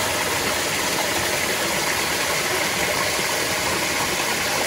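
Small waterfall spilling over sandstone into a shallow rock pool: a steady, even rush of falling water.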